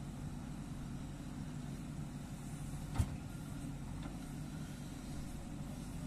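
JCB 3DX backhoe loader's diesel engine running steadily under load as the backhoe arm digs, with one sharp knock about halfway through.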